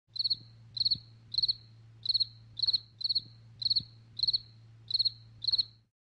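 Cricket chirping: ten short, high chirps, about one every 0.6 seconds, each a quick trill of a few pulses, over a faint steady low hum. It stops just before the end.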